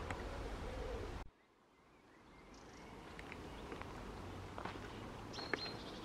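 A pigeon cooing low, over wind rumble on the microphone, cut off suddenly about a second in. After that, quiet outdoor ambience with a few faint ticks and short high bird chirps.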